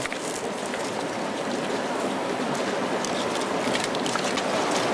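River water rushing steadily, with light clicks and rustles as a cast net and its chain weights are handled on stones.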